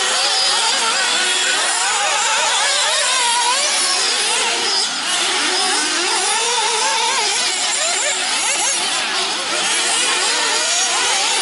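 Several nitro RC buggies' small glow-fuel engines running at high revs, their whining pitches overlapping and constantly rising and falling.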